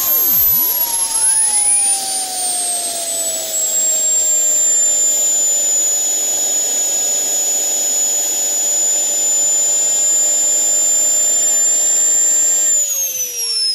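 JetJoe 1400 model gas turbine running with a high whine over its roar; the whine falls in pitch over the first few seconds, then holds steady. Near the end the roar cuts off suddenly and the whine drops away as the engine runs out of fuel and spins down.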